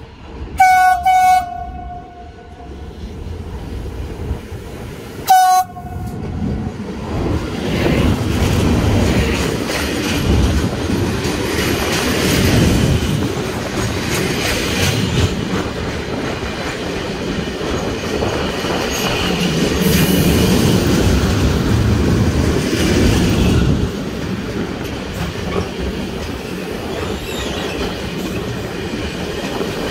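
Freight train's electric locomotive sounds its horn: one blast about half a second in and a short second blast about five seconds in. The train then passes close by, and its freight wagons roll past with the steady noise of wheels on the rails.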